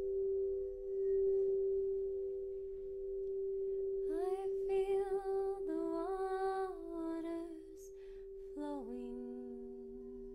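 Crystal singing bowls ringing with two steady overlapping tones. About four seconds in, a woman's wordless voice sings over them, stepping between a few pitches. Near the end it comes in again, sliding down to a low held note.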